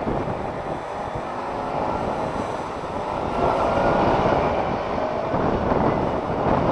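Motorcycle engine running under way, with wind and road noise. It gets a little louder about halfway through.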